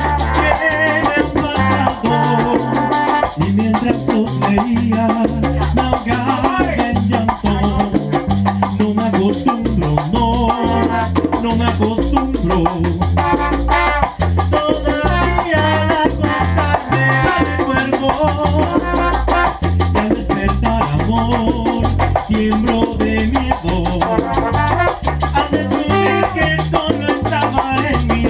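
A salsa band playing live, with bass and steady percussion, without piano, timbales or trumpets. A man sings lead into a handheld microphone over it.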